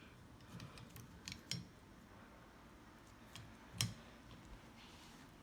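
A few scattered sharp clicks and taps against a quiet background, the loudest about four seconds in.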